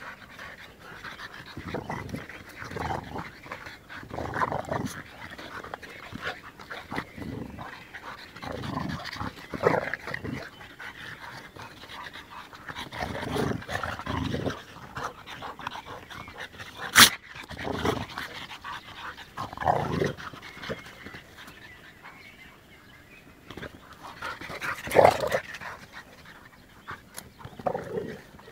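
American bulldog, French bulldog and bull terrier play-fighting: repeated short growls and panting in bursts, with one sharp click a little past the middle.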